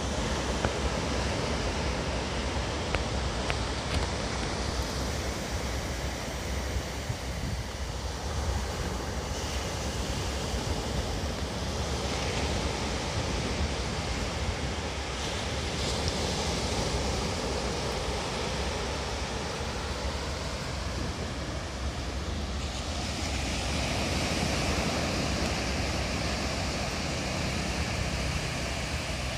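Small shore-break waves washing steadily onto a sand beach, with wind noise on the microphone.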